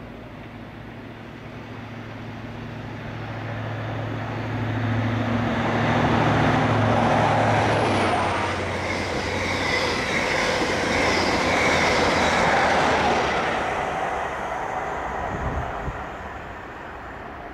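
High Speed Train (InterCity 125) running through the station without stopping: the hum of the leading Class 43 diesel power car grows as it approaches, then the rumble and clatter of the Mark 3 coaches on the rails peaks with a ringing wheel-on-rail whine and fades away as the train passes.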